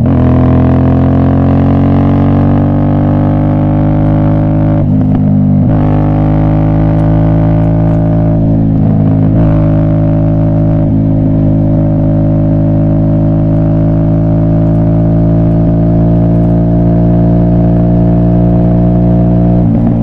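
Aprilia Shiver's V-twin engine running under load on the move, a loud steady drone whose pitch climbs slowly, with brief breaks and drops about five and nine seconds in as gears change, then holding near-steady at cruise.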